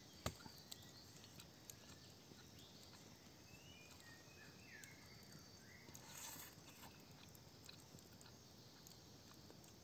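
Near silence: quiet forest ambience with a few faint chirping calls through the middle, one sharp click just after the start and a soft rustle about six seconds in.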